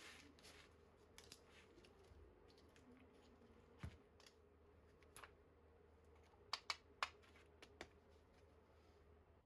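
Near silence with a faint steady hum, broken by a few scattered light clicks and taps, the loudest a quick cluster about two-thirds of the way through.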